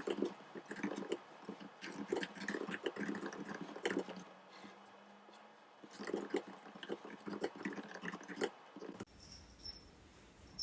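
Irregular clicks, taps and rustling close to the microphone, cutting off abruptly about nine seconds in.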